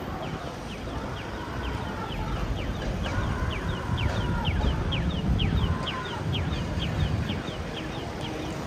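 Audible pedestrian crossing signal chirping, a steady train of short falling beeps about three a second while the walk light is green, telling blind pedestrians it is safe to cross; it stops near the end. Low traffic rumble and crowd noise underneath.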